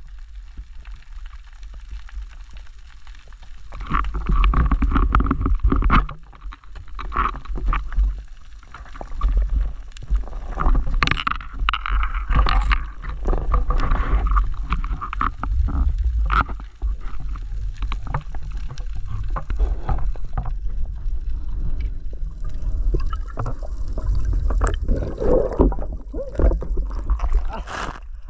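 Underwater sound picked up by a diver's camera: a continuous low, muffled water rumble with many irregular clicks and crackles as the diver and gear move over the reef.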